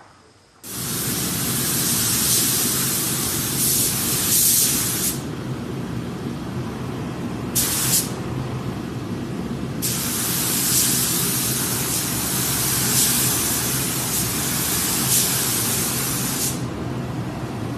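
Compressed air hissing in three bursts, a long one, a very short one near the middle and another long one, over a steady motor hum that starts abruptly about a second in.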